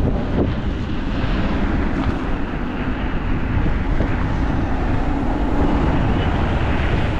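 Strong wind buffeting the microphone on a moving electric scooter: a loud, steady low rumble.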